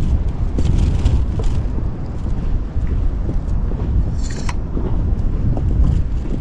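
Strong wind buffeting the microphone: a loud, steady low rumble. Short hissy splashes of choppy water against the inflatable boat come through about a second in and again about four seconds in.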